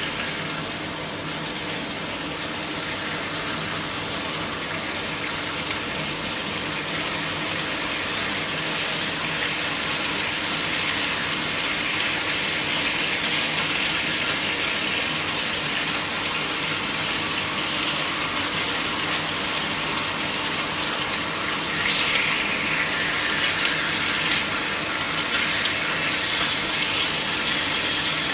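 Bacon slices sizzling in a hot frying pan: a steady hiss that grows a little louder as more slices go in.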